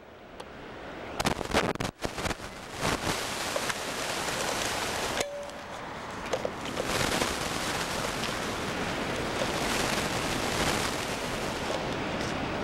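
Steady rushing noise of wind and surf on a camcorder microphone, with knocks and rustles from the camera being handled in the first few seconds. About five seconds in the sound breaks off abruptly and then resumes.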